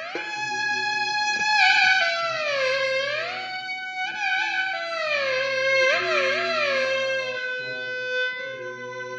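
Improvised Indian-style music: a melody that slides smoothly up and down in pitch, over a steady low drone.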